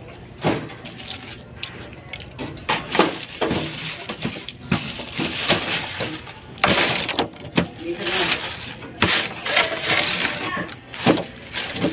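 Thin plastic carrier bag crinkling and rustling while handfuls of pineapple peel are scraped across a table and stuffed into it, with many small clicks and knocks; the rustling is loudest about seven seconds in and again near the end.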